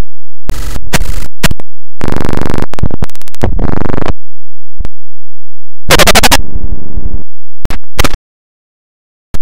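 Heavily distorted, clipped audio from a video-effects edit: choppy blasts of harsh noise and buzzing, pitch-shifted tones that start and cut off abruptly, with a brief drop to silence near the end.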